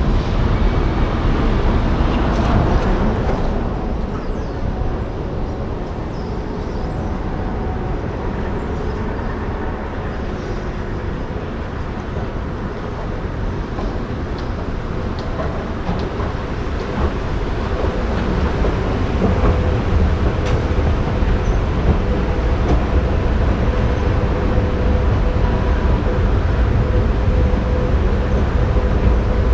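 Steady traffic rumble at a curbside, turning after a few seconds into quieter indoor hall ambience; in the last part a steady mechanical hum with a clear tone comes in, from a running escalator.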